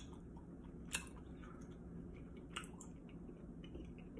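Chewing a mouthful of tteokbokki, with soft wet mouth sounds and a few sharp clicks, the clearest about a second in and another past two and a half seconds.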